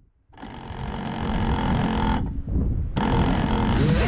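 FPV quadcopter's brushless motors and propellers spinning up in two throttle bursts, a hissing whine with a tone that rises in pitch near the end.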